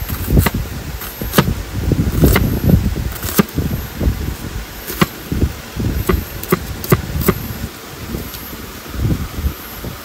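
A dozen or so irregular clicks and knocks of objects being handled, over a gusty low rumble of wind on the microphone.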